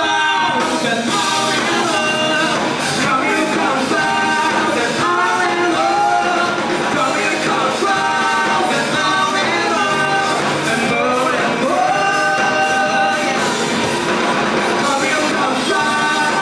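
Live rock band playing with a lead vocalist singing over loud guitars and drums.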